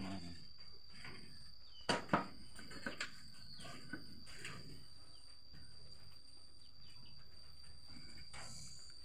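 Rural outdoor ambience with a steady high-pitched insect drone and occasional bird calls. Two sharp knocks come about two seconds in, followed by a few lighter taps.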